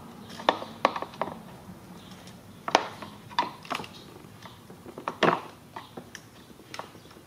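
Plastic clips and tabs of a Lincoln MKX front grille clicking and snapping as they are pushed out of the bumper cover one by one with a small tool: a series of sharp clicks, about nine in all, the loudest about five seconds in.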